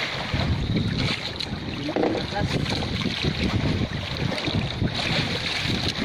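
Wind buffeting the microphone over the steady wash of sea water around a small fishing boat.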